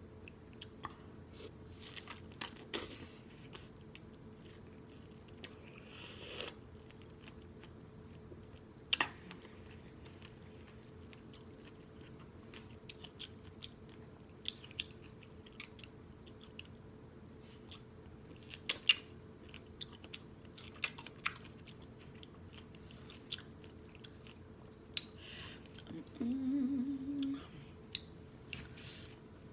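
Close-miked mouth sounds of someone chewing strawberries with vanilla yogurt: wet smacking and sharp little clicks, with the loudest bites about 9 and 19 seconds in. A short hummed "mm" comes near the end.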